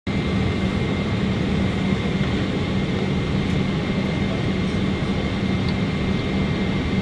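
Steady cabin drone inside a Boeing 777-300ER during pushback: an even rush of air with a constant low hum and a faint steady high whine.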